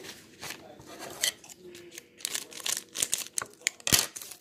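Close handling noise from plastic things being moved about: irregular rustling, crinkling and clicking, with a sharp knock about four seconds in.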